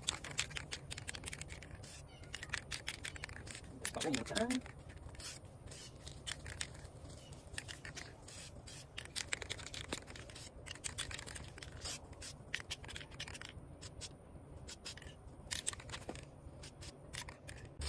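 Irregular rustling, scraping and clicking as a mesh camouflage net and an aerosol spray-paint can are handled over cardboard, with a brief murmur of a man's voice about four seconds in.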